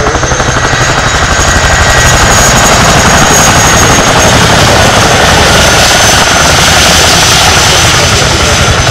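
Boeing CH-47 Chinook tandem-rotor helicopter landing close by, very loud: the rapid, steady beat of its two rotors over a high, steady whine from its turbine engines.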